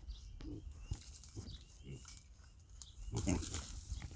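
Hereford-Berkshire cross piglets giving short, soft grunts, with a louder run of grunts about three seconds in.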